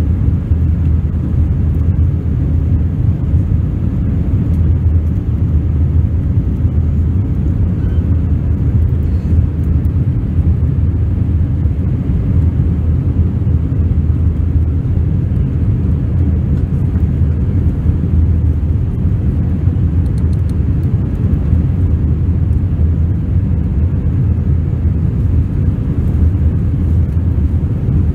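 Steady low rumble of a jet airliner's engines and the air rushing past, heard from inside the cabin over the wing during the climb after takeoff.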